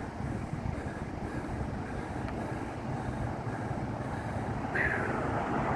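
Steady vehicle rumble with wind noise on the microphone, growing louder near the end.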